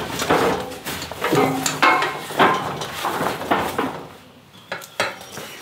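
A bull shifting in a steel treatment crush: a run of metal clanks and knocks as it moves against the frame, with two sharp knocks near the end.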